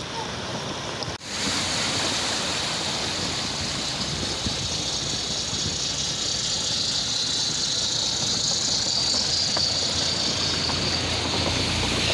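Cars driving slowly through a flooded street: a steady rushing, sloshing hiss of water around their tyres over the low sound of their engines running. The sound dips out briefly about a second in, then comes back louder.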